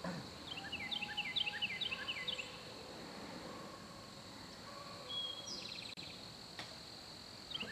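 Faint outdoor ambience: a bird chirping in quick runs of short descending notes, twice, over a steady high-pitched drone.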